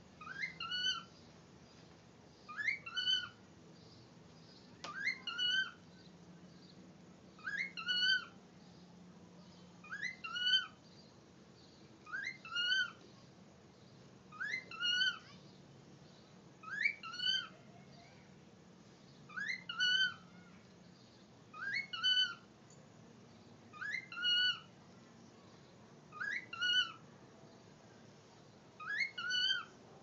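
Cockatiel whistling the same short two-note call over and over, a rising note then a second shorter one, about every two and a half seconds.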